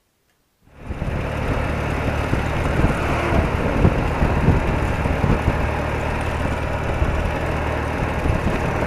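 BMW R80RT motorcycle's air-cooled flat-twin boxer engine running steadily as the bike rides along the road. It cuts in suddenly a little under a second in, after near silence.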